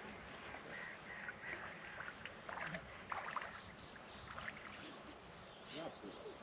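Water lapping and splashing, with three short high chirps about halfway through.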